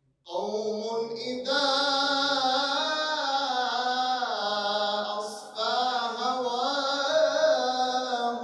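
Solo male voice chanting a devotional Islamic praise poem, holding long wavering notes, with a short pause for breath about five seconds in.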